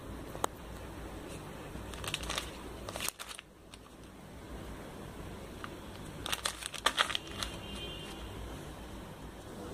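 Plastic spice sachet crinkling as it is handled and turned over, in two short clusters of rustles, about two seconds in and again near the middle, over a steady low background noise.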